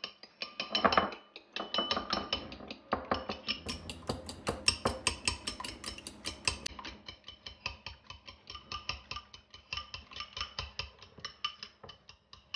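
Fork beating eggs in a ceramic bowl: a fast, steady run of clinks as the fork strikes the inside of the bowl, several a second.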